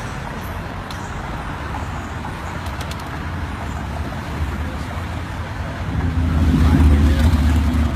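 Road traffic going by on the street, a steady rumble. About six seconds in, a passing vehicle's engine rises to the loudest point and fades near the end.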